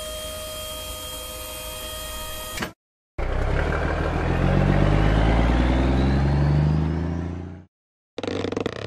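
Cartoon dump-truck sound effects: a steady mechanical hum for about two and a half seconds as the tipper body comes down, then a truck engine revving up and pulling away, rising in pitch for about four seconds. A short burst of another noise follows near the end.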